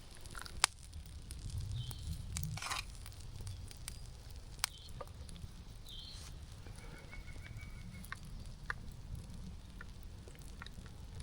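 Quiet campfire-side ambience: a low rumble with a few sharp pops or clicks, and several short bird chirps.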